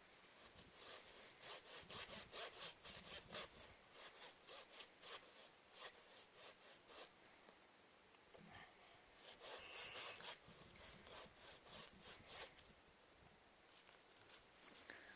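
Folding hand saw cutting into a small tree's wood in quick back-and-forth strokes, about two to three a second. The strokes come in two spells, with a pause of about two seconds between them, and stop a few seconds before the end.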